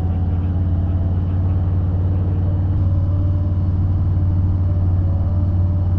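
Harley-Davidson V-twin motorcycle exhaust running steadily under way, a deep, evenly pulsing note with no change in pitch.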